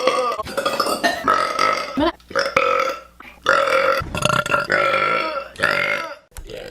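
A girl burping loudly, a run of about five long, drawn-out burps one after another with short breaks between them.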